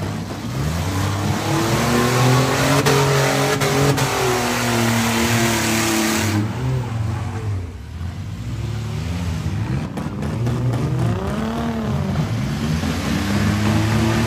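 Demolition-derby van engines revving, their pitch rising and falling again and again as the vans drive around the arena. A rushing noise over the engines cuts off suddenly about six seconds in.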